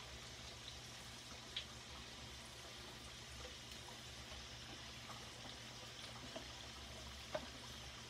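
Potato wedges frying in shallow oil in a skillet: a faint, steady sizzle with a couple of sharper clicks, about a second and a half in and near the end.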